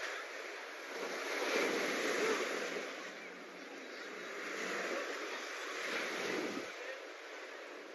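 Sea waves washing onto a sandy beach, the rush of surf swelling and fading twice.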